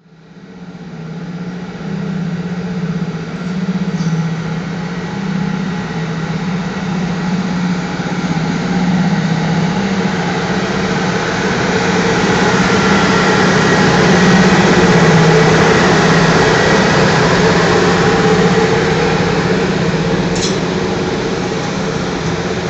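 CFR electric locomotive hauling a passenger train slowly past: a steady hum that rises from quiet at the start and is loudest as the locomotive goes by about two-thirds of the way through, then the coaches rolling over the rails, with a sharp click near the end.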